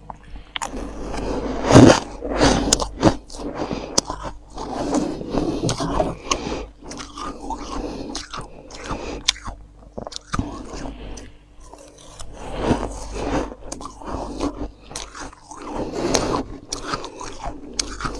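Freezer frost being crunched and chewed, with dense irregular crunches and sharp crackles, along with a metal spoon scooping and scraping into the packed frost.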